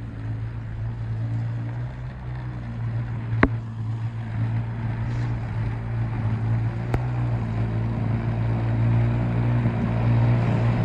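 EGO SNT2100 battery-powered snow blower running at full throttle with a steady electric hum, growing louder as it comes closer while throwing snow. Wind noise on the microphone lies over it, and there are two sharp clicks, about a third of the way in and again past the middle.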